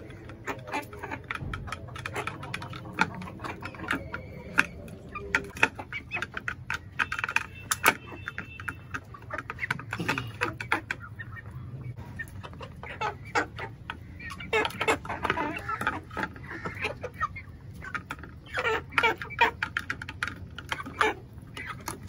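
Young Aseel chickens clucking and calling, mixed with many sharp clicks of beaks pecking feed from a plate.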